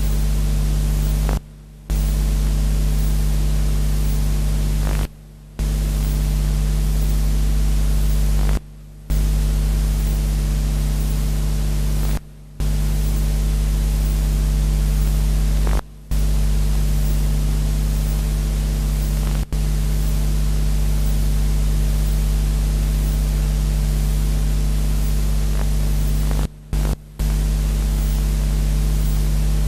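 Loud steady static hiss over a strong mains hum and its overtones, cutting out briefly about every three to four seconds.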